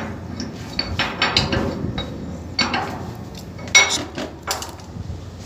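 Metal clinks and knocks as the cap of a ballast tank's sounding pipe is worked open, several separate sharp strikes with a short metallic ring, the loudest clang about two-thirds of the way in.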